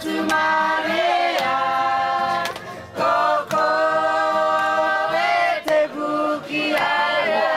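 A group of voices singing a cappella in harmony, holding long chords in phrases of two to three seconds with short breaks between them.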